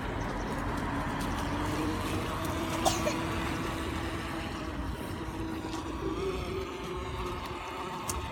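Radio-controlled model boat's brushless 4370kv motor running steadily as the boat moves across the water, a steady whine that rises slightly in pitch about six seconds in.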